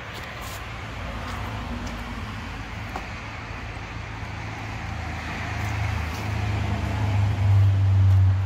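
A motor vehicle running nearby, a low engine hum with tyre-like hiss that grows steadily louder over the last few seconds, as a car approaching or passing.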